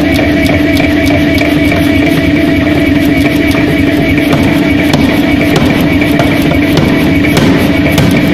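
A 150 kg air hammer running and striking a red-hot steel cylinder with rapid repeated blows, about three to four a second, over the machine's steady drone; very loud.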